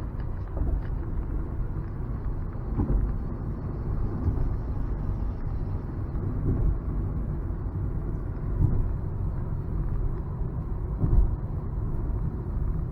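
Tyre and road noise inside the cabin of a Nissan Leaf electric car at highway speed: a steady low rumble with no engine note, swelling briefly a few times over bumps in the road.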